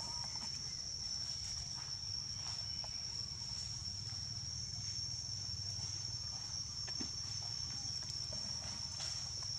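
Steady high-pitched insect drone, one unbroken tone, over a low rumble, with a few faint ticks and rustles.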